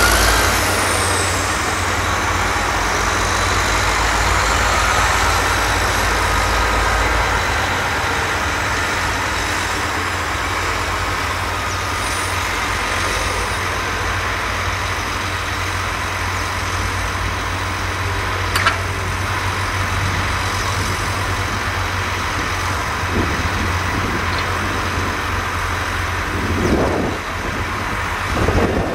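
Diesel farm tractor engines running steadily as a John Deere tractor hauls a silage trailer up to the clamp, with rougher noise over the last few seconds as the trailer begins to tip.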